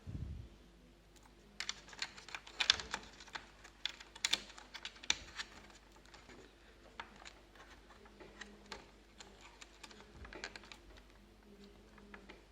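A soft thump, then a quick run of small sharp clicks and taps for a few seconds, thinning to scattered clicks: a laptop hard drive being handled and its connector pushed into place in the laptop's plastic chassis.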